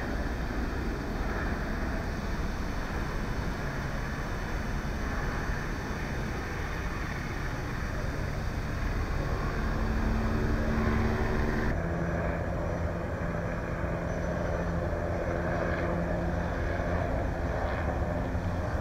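Steady low rumble of a helicopter circling overhead, with faint steady tones in it. About twelve seconds in, the sound shifts abruptly and loses most of its hiss.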